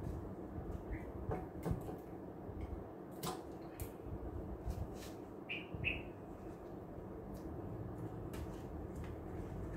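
Light clicks and rustling from hands handling small items, with two short high chirps a little past halfway.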